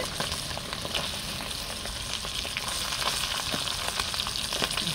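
Small sprat fish frying in hot oil in a black pot, a steady sizzle with fine crackling throughout.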